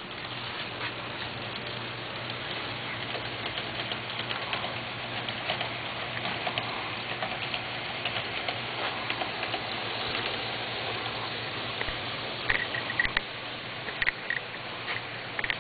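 HO scale model train running along the track: a steady rolling rattle full of small quick clicks from the wheels on the rails, over a steady low hum. Several sharper bunches of clicks come near the end.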